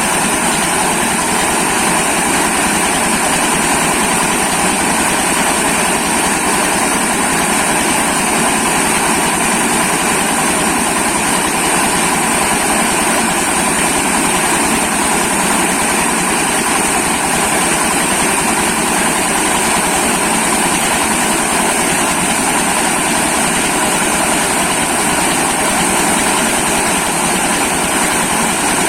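Corn grinding mill running steadily at full speed: a continuous mechanical racket with a steady high-pitched whine over it, unchanging throughout.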